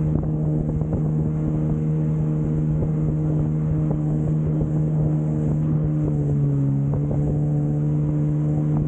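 Jet ski engine running at a steady cruising speed, with wind rushing over the microphone. The engine note dips briefly about six seconds in, then comes back up.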